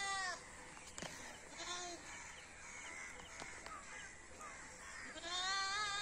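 Goats bleating: a long bleat trails off just after the start, a short bleat follows about a second and a half in, and near the end comes another long, wavering bleat.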